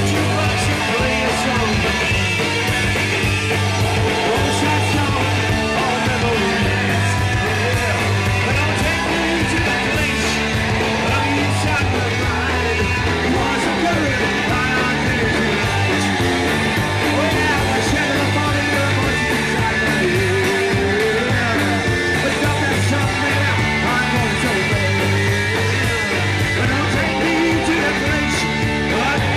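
Live rock band playing loud and steady: electric guitar and a drum kit, with a male singer singing into a microphone.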